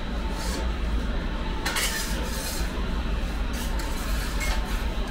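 Metal pizza turning peel scraping and rubbing across the floor of a pizza oven as pizzas are shifted and turned: a few short scrapes, the loudest about two seconds in, over a steady low rumble.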